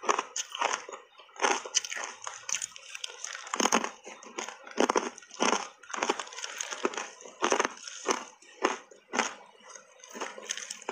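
Close-up chewing of hard refrozen ice coated in matcha powder: an uneven run of crisp crunches, about one or two a second.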